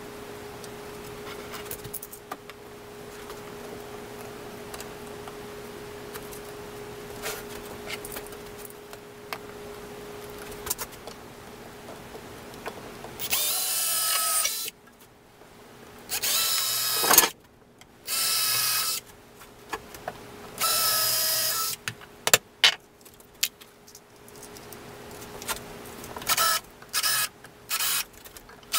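Cordless drill running into wooden boards: four runs of about a second each with a steady motor whine, then a string of short quick bursts near the end. Before the drill starts there is a steady faint hum with a few small clicks.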